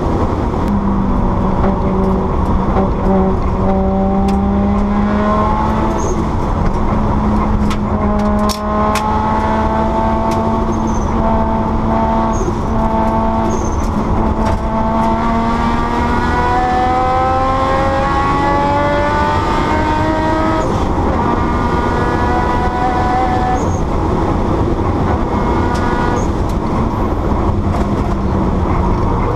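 Rally car engine heard from inside the cockpit at speed on a stage, pulling through the gears: its pitch climbs slowly for several seconds at a time and drops at each gear change, over steady tyre and road noise. There are a few sharp clicks about eight or nine seconds in.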